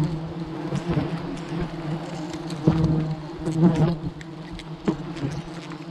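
A swarm of giant honey bees buzzing in a steady, dense hum around their open nest, with a few short knocks from handling the comb.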